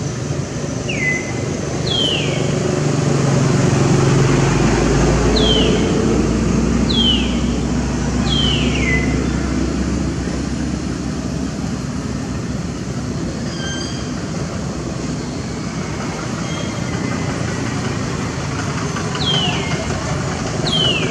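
A steady low rumble like passing vehicles, swelling between about three and ten seconds in. Over it come short, high calls that each slide downward: five in the first nine seconds and two more near the end.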